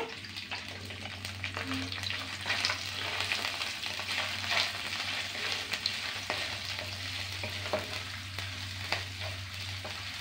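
Curry leaves, pandan leaf and garlic sizzling in hot oil in a non-stick frying pan, the tempering stage of the curry. They are stirred with a spatula that clicks and scrapes against the pan now and then.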